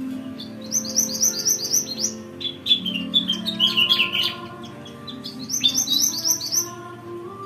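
Several small songbirds calling together. Two bursts of rapid high chips are separated by a run of quick falling whistled notes.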